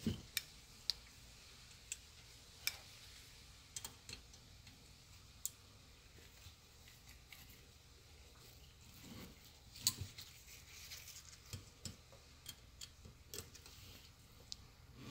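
Scattered light clicks and ticks of a screwdriver and needle-nose pliers working a small screw and nut into a headlight projector's metal mounting bracket, at irregular times with the sharpest click about ten seconds in.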